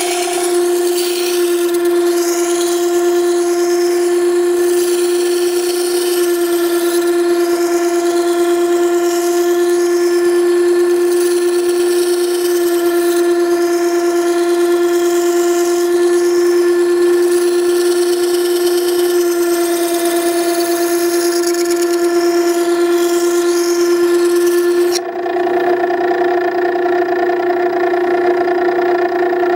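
Makita 9820 electric wet sharpening stone running with a steady whine, while a steel plane iron held in a jig grinds against its 120-grit wheel with a hiss, rough grinding the bevel back toward 25 degrees. About 25 seconds in, the grinding hiss stops as the iron is lifted off, and the motor whine carries on.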